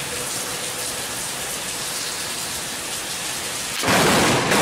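Heavy rain pouring steadily, then about four seconds in a sudden, loud thunderclap from a lightning strike very close by.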